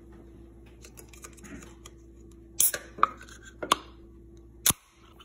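Fingers clicking and tapping on the aluminium pull tab of a soda can: a handful of sharp separate clicks in the second half.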